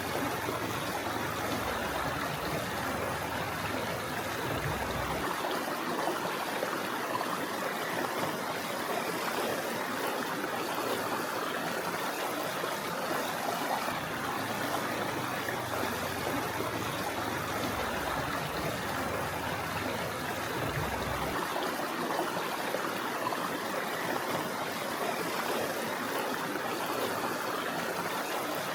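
A river flowing over stones, a steady rushing and trickling of water.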